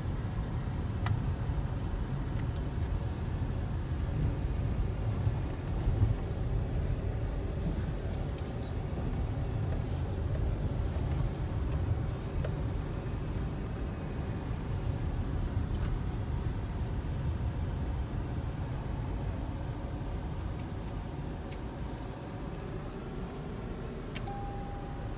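A car driving slowly, heard from inside the cabin: a steady low rumble of engine and tyre noise on the road.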